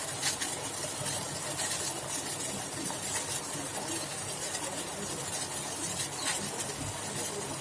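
Pan of herbal kadha boiling on the stove: a steady simmering hiss with scattered small pops, as the water boils down to half.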